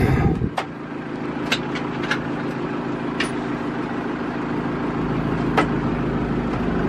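John Deere 5101E tractor's four-cylinder diesel engine running, heard from inside the cab as the tractor moves, growing slowly louder. A few sharp clicks sound over it.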